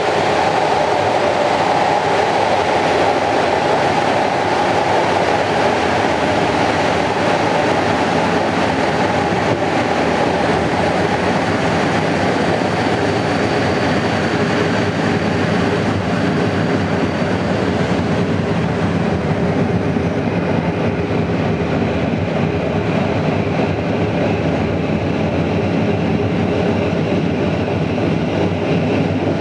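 Passenger train running along the line, heard from inside the carriage: a steady rumble and rush of wheels on rail. The higher rushing part eases off in the second half.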